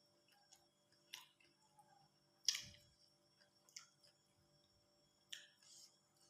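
Near silence broken by a few faint, short eating clicks and crunches, the loudest about two and a half seconds in with a soft low thump.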